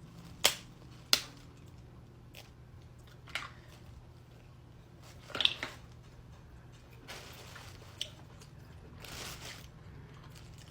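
Food and packaging being handled: a few sharp crackles and clicks, then two short rustling hisses in the second half.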